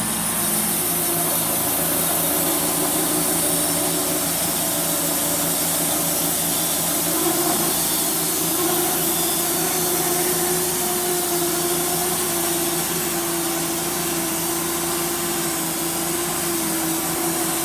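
Homemade sawmill blade cutting slowly through a dry walnut slab, a steady machine run that doesn't let up. The blade gives a hollow sound because the dry wood is hard to cut through.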